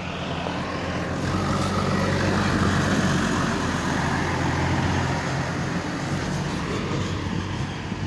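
Diesel engine of a JCB 3DX backhoe loader running steadily, getting louder over the first three seconds and then holding level.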